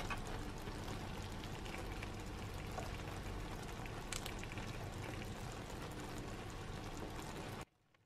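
Seafood paella simmering in a wide pan on low heat: a steady bubbling sizzle of stock cooking down into the rice, with a light click about four seconds in. It stops abruptly near the end.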